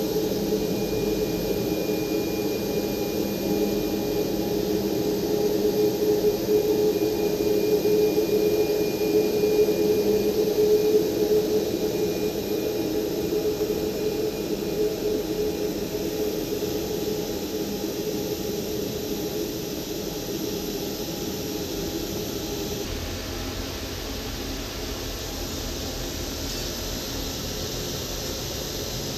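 Boeing 737 airliner's jet engines running as it taxis past: a steady rushing whine with a hum that grows louder, then fades. Near the end it gives way to a quieter steady rush.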